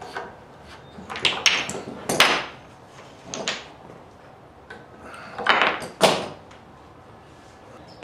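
Steel F-style bar clamps being loosened and pulled off a glued-up wooden chessboard: clacks and scrapes of the clamp jaws sliding on their bars, in three short bunches, with the last two seconds quieter.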